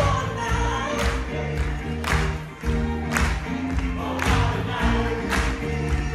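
Live stage band and cast singing an upbeat song in harmony, with a strong beat accent about once a second.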